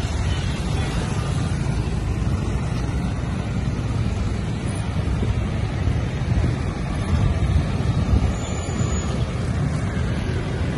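Road traffic: motorcycles and light vehicles passing on a city street, a steady low rumble of engines and tyres.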